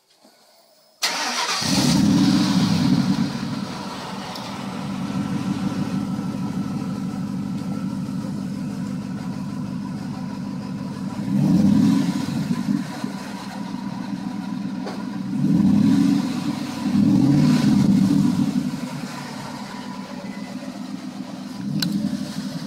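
Ford F-150 Lightning V8 firing up through its twin side-exit exhaust about a second in, then idling steadily. Several short throttle blips come later, the strongest a little after halfway, with a smaller one near the end.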